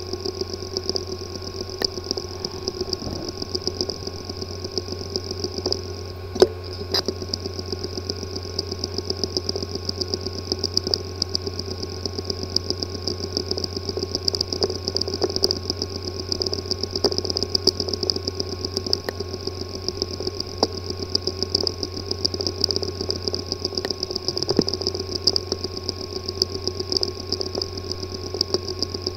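Hard drive with a physically damaged disk assembly running: a steady hum and high whine with rapid fine ticking throughout, and a couple of louder clicks about six and seven seconds in. This clicking is the symptom of damage inside the drive's head and platter assembly.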